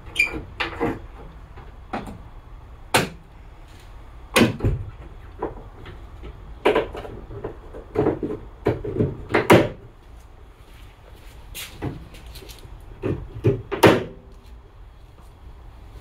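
Knocks and clunks of a Jeep Wrangler JK's hood being lowered and shut, about a dozen separate hits with a deeper thump about four and a half seconds in.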